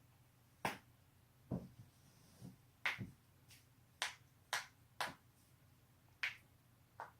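A person cracking their own joints: about ten sharp pops and clicks at uneven intervals, some crisp and high, others duller and deeper.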